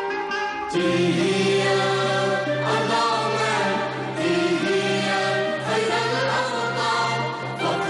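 Orchestral music with a choir singing; under a second in, the choir and full orchestra come in together and the music gets louder and fuller.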